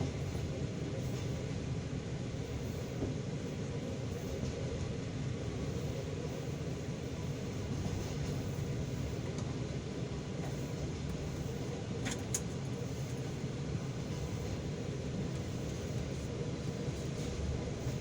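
Passenger train carriage rolling along, heard from inside: a steady rumble of wheels on the rails, with one sharp click about twelve seconds in.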